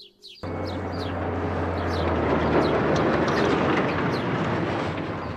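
Star 660 truck driving along the road, its engine noise cutting in abruptly about half a second in, swelling toward the middle and then easing off slightly.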